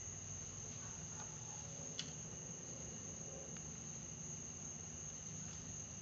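Night-time insect chorus, a steady high-pitched trill such as crickets make, with a single sharp click about two seconds in.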